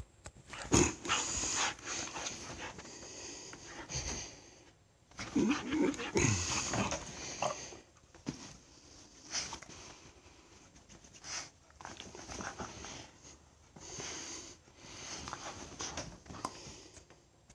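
A young dog playing on a bed: irregular bursts of panting and the rustle of bedding as it moves. The loudest stretches come about a second in and from about five to seven seconds in, where a short pitched dog vocal sound bends up and down.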